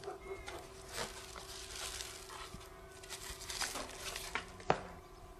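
Faint rustling and crinkling of a foil-lined insulated vaccine holster being handled and put into a plastic esky, with a sharp click near the end, over a steady low hum.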